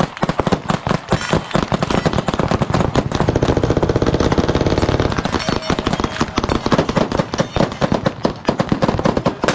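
Massed gunfire from many guns shooting at once along a firing line. The shots overlap into a continuous rapid crackle that is densest about three to five seconds in.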